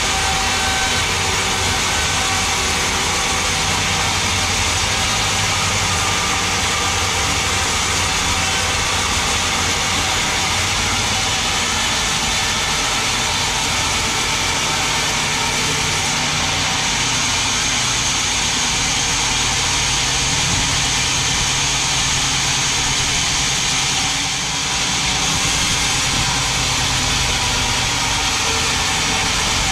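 Large sawmill log band saw running and ripping lengthwise through a big mahogany log: a steady hiss of the blade cutting the wood over the low hum of the drive.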